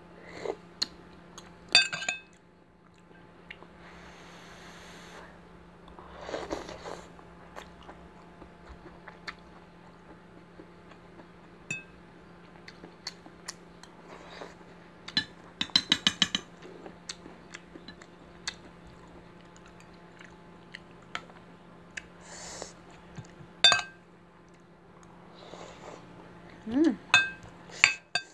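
Eating sounds: chewing, with a metal spoon and fork clinking against ceramic dishes now and then, including a quick run of clinks about sixteen seconds in. A faint steady hum runs underneath.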